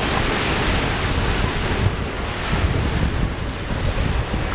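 Small waves breaking and washing up the shore in a steady surf, with wind buffeting the microphone as a low rumble.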